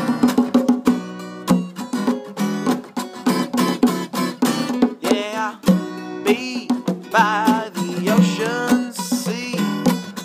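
Two acoustic guitars strummed and picked together in a rhythmic instrumental passage of a song. In the second half, a wavering melody line rises over the strumming.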